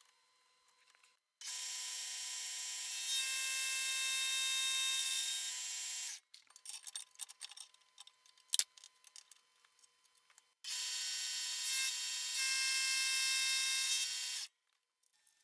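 Power tool used to cut axle splines, running with a steady high whine in two runs of about five seconds each. Each run gets a little louder partway through. Scattered clicks and rattles of metal handling come between the runs.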